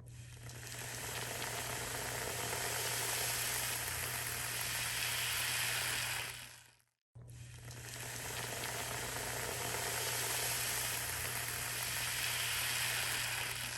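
A steady sizzling hiss in two stretches of about seven seconds, split by a brief silent cut, over a low steady hum.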